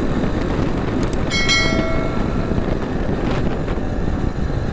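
Wind rushing over the microphone and a motorcycle running at road speed. About a second in comes a mouse click, then a bell-like notification chime that rings and fades over about a second.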